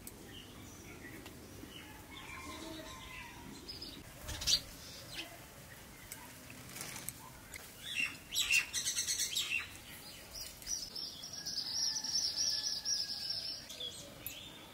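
Birds calling outdoors: scattered high chirps, then a fast, rattling call about eight seconds in, followed by a high, trilling song lasting about three seconds near the end. A single sharp click is heard about four seconds in.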